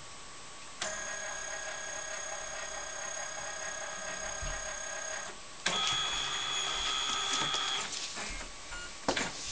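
Canon 9000F flatbed scanner's carriage motor whirring steadily with a whine as the scan head travels under the glass, for about four and a half seconds. After a brief pause comes a second, louder motor pass with a higher whine lasting about two seconds. Near the end there are a couple of knocks as the book is lifted off the scanner.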